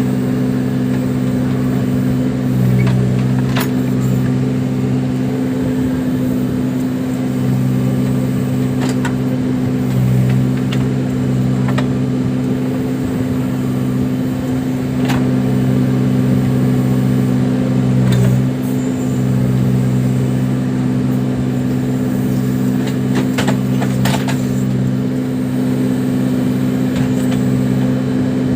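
Case 580 Super backhoe loader's diesel engine running steadily, swelling briefly under load about three times. A few sharp knocks come through over it.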